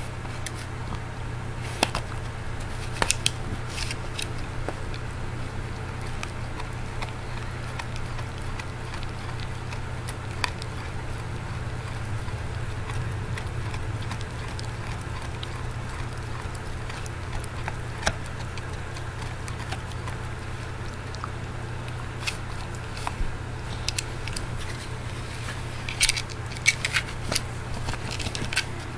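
Beagle gnawing on a knotted rawhide bone: irregular wet crunching and sharp clicks of teeth on the hide, with a louder flurry of clicks near the end, over a steady low hum.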